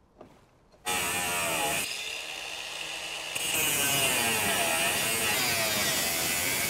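An angle grinder cuts through the sheet steel of a rusty Citroën 2CV body, starting about a second in. Its whine wavers in pitch as the disc bites, eases off for a moment around two seconds in, then runs loud again.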